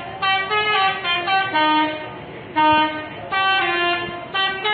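Indonesian bus 'telolet' multi-tone horn playing a quick melody of short notes that step up and down in pitch, breaking off for about half a second midway before another run of notes.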